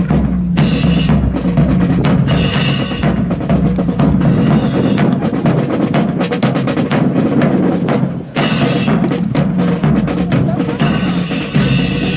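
Marching drum cadence on snare and bass drum, beating steady time for a rifle drill team on the march.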